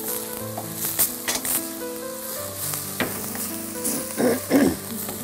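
Food sizzling on a gas stovetop, with a few light knocks of a utensil against a pot, over faint background music with held notes.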